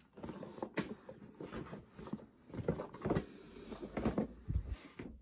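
Cardboard toy-set box being handled and turned over on a tabletop cutting mat: scraping and rubbing of the cardboard with several light knocks as it is set down.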